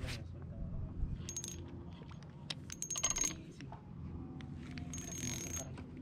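Spinning reel clicking and whirring in three short bursts as line is worked against a snag in a submerged branch.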